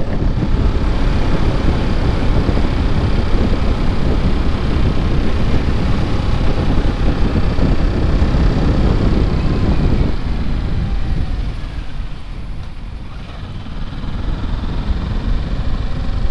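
A motorcycle engine running with heavy wind rush on the rider-mounted camera as the bike cruises. About ten seconds in the noise drops as the bike slows for a bend, then builds again as it pulls away. The bike is being ridden gently at moderate revs during its break-in period.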